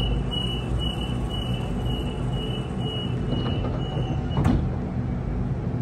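Double-deck electric passenger train's door-closing warning: a quick run of high beeps, about two a second for some four seconds, then a sharp thud as the sliding doors shut. A steady low hum from the stationary train runs underneath.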